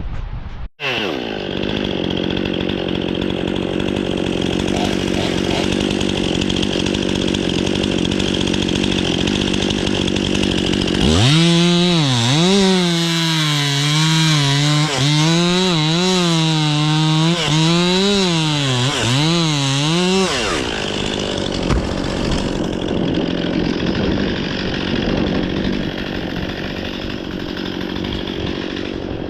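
Two-stroke chainsaw running. From about eleven seconds in it is driven hard for about nine seconds, its pitch dipping and rising as it loads up in the wood, before easing back to a steadier run.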